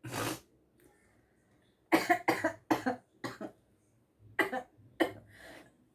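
A person coughing in fits: one cough at the start, a quick run of about five coughs about two seconds in, then a few more near the end. The coughing is set off by tickling inside the nose with a cotton bud while trying to force a sneeze.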